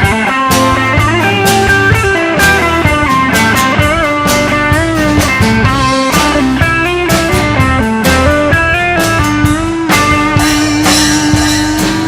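Live band playing an instrumental break: a lead guitar line with bent notes over drums and a steady rhythm section.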